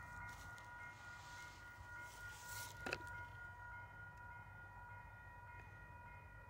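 Faint distant freight train approaching: a steady high-pitched tone over a low rumble, the tone fading out near the end. A single sharp click about three seconds in.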